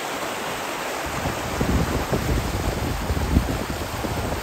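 Fast, shallow mountain stream rushing over rocks and gravel in a steady wash. From about a second and a half in, low gusts of wind buffet the microphone for a couple of seconds.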